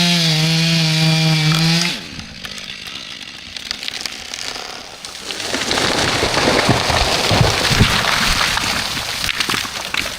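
Chainsaw running steadily at high revs, stopping abruptly about two seconds in. It is followed by a noisy rushing and crackling that swells about halfway through and stays loud to near the end.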